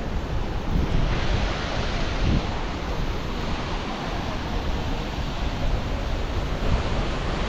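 Steady rushing noise of wind and falling water, with gusts of wind buffeting the microphone and rumbling unevenly in the low end.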